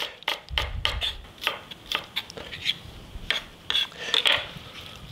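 Chef's knife chopping scallions on a wooden cutting board: a quick, uneven run of knife knocks, about four to five a second, stopping shortly before the end.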